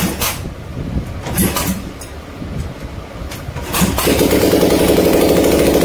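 Royal Enfield Bullet 500's single-cylinder engine being kick-started on its first start after a full rebuild: a few kicks, then about four seconds in it catches and runs with a loud, fast, even beat, with no silencer fitted.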